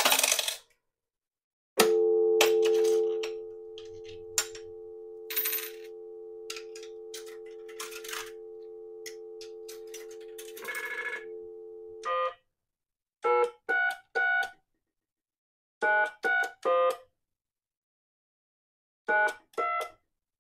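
Western Electric 1C2 single-slot payphone: the handset clatters off the hook and a steady two-tone dial tone comes through it, loud at first and then quieter, with a few clicks of coins going into the slot. About twelve seconds in, the dial tone stops and the number is keyed in as short touch-tone beeps in quick groups, which is a dial-tone-first call being placed.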